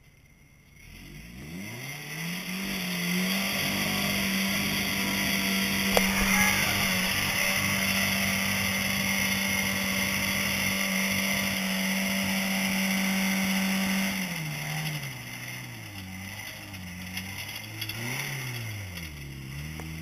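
Rock crawler's engine revving up and held at high revs under load for about ten seconds as the rig climbs a wet rock ledge, with a sharp knock about six seconds in. Then the revs drop and rise again in short blips.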